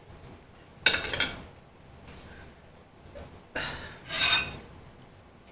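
Metal cutlery clinking against ceramic dishes: a few sharp clinks about a second in, then a longer scraping clatter about four seconds in.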